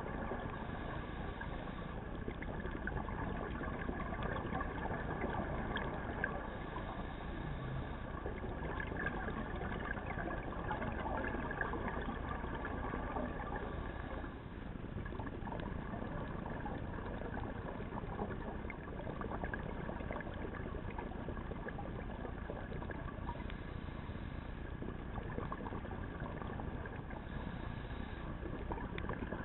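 Underwater ambience picked up by a camera in its housing: a steady hiss and low rumble with fine crackling throughout and a couple of faint steady tones.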